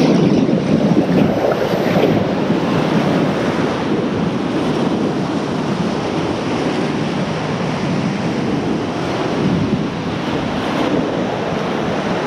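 Whitewater rapid rushing around an oar raft as it runs the rapid, a steady loud noise of churning water mixed with wind on the camera microphone.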